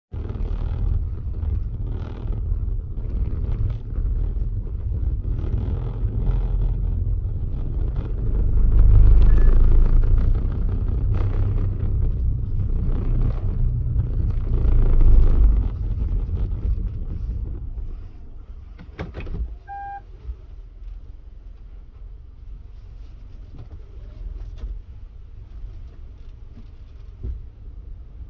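Car on the move: a steady low rumble of engine and road noise that drops off sharply about eighteen seconds in, followed by a short electronic beep a couple of seconds later.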